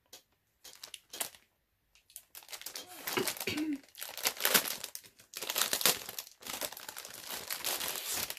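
Paper wrapping being crinkled and torn open as a wrapped book is unwrapped: a few light rustles, then dense crinkling and tearing from about two seconds in.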